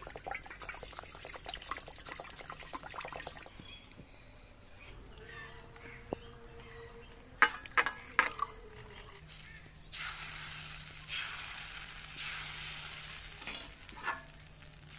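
Water poured from a mug into rice flour in an aluminium wok, splashing and crackling for the first few seconds; then, about ten seconds in, a steady sizzle of rice batter cooking in a hot cast-iron chitoi pitha mould.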